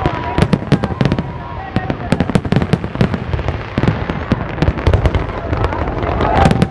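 Fireworks display: a dense, rapid run of bangs and crackles from aerial shells bursting, many per second, with no pause.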